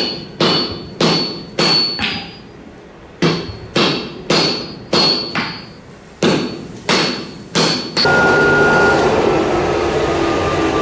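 Hand hammer striking a red-hot Damascus steel billet on a steel anvil block, about a dozen ringing blows at an uneven pace. About eight seconds in they give way to the steady running of a power forging press, with a faint whistle slowly falling in pitch.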